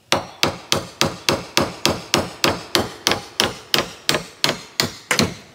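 Hammer driving a nail through foam board into wood, in quick, even blows about three to four a second.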